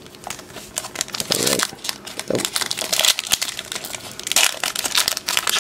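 Foil Yu-Gi-Oh! booster pack wrapper crinkling and crackling as it is handled and torn open by hand, a dense run of small crackles.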